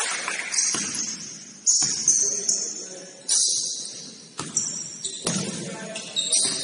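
Basketball play on an indoor court: sneakers squeaking sharply on the floor, several times, mixed with echoing thuds of the ball and feet.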